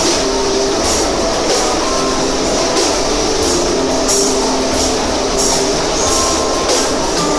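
Metro train running, heard from inside the passenger car: a steady loud rumble and rattle with a few held tones that shift in pitch, and irregular clacks from the wheels over the rails.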